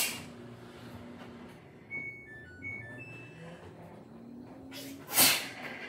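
A woman sneezing loudly twice, once right at the start and once about five seconds in, the second the louder; the sneezing is her allergic reaction to a new laundry detergent. In between, a short run of electronic beeps at a few different pitches from the washing machine's control panel.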